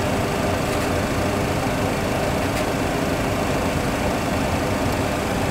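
Steady cockpit noise of a Boeing 737 full flight simulator: the simulated engine and airflow sound of a climb on the one remaining engine, after engine number 2 has been shut down for a fire.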